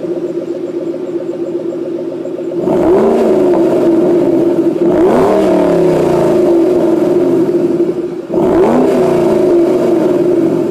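2012 Ford Shelby GT500's supercharged V8 exhaust, heard from beside the tailpipe: idling steadily, then revved three times, about three, five and eight seconds in, each rev rising and dropping back before it settles to idle again.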